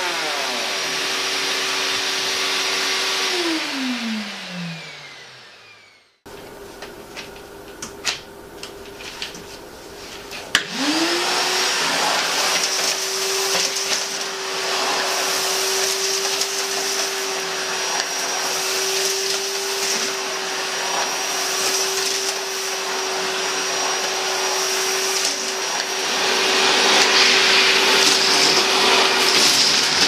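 STOMER wet-and-dry shop vacuum running with an electric planer plugged into it. The planer spins down at the start; the vacuum runs on for a few seconds and then winds down by itself, its automatic switch-off. After a few clicks and knocks the vacuum starts again, rises quickly to a steady running note and sucks up sawdust and wood offcuts from a tiled floor, louder near the end.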